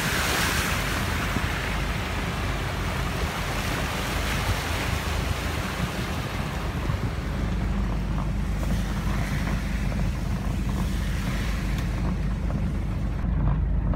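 Car driving through shallow muddy floodwater, heard from inside: a steady swish of tyres in water over a low road rumble, with a brighter rush of water at the start as a pickup truck passes close alongside through the flood.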